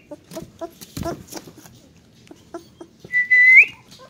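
A whistle used as the puppies' recall signal: one held note that rises sharply at its end, about three seconds in. Before it come a few faint short squeaks and a soft knock about a second in.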